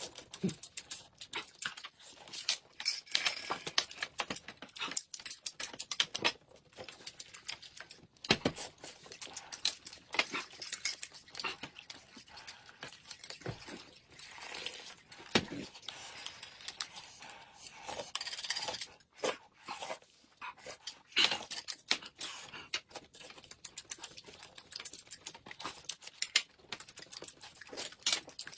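Close-miked eating sounds: chewing and slurping, with many small clicks of spoons and chopsticks against glasses and dishes. Corn soup is stirred and sipped from glasses.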